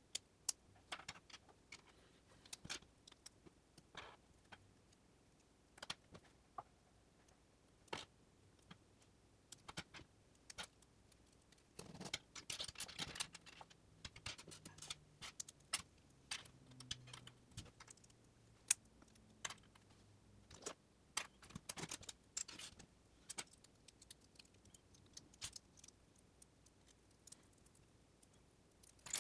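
Small plastic LEGO bricks being handled and fitted together: faint, scattered sharp clicks as pieces snap together and are set down, with a denser patch of rattling clatter about twelve seconds in.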